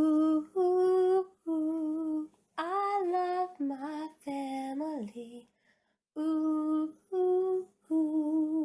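A woman singing a slow tune in long held notes, unaccompanied, with short pauses between phrases.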